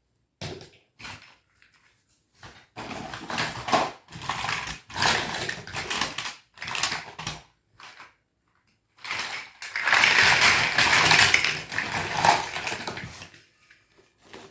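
Rustling and knocking of plastic toys being handled and sorted, in irregular bursts, with a longer, louder stretch of rustling about ten seconds in.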